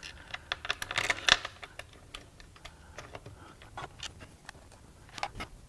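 Light metallic clicks and clinks of small bolts being handled and started by hand into a deep oil sump extension. A quick flurry of clicks comes about a second in, then scattered single ticks.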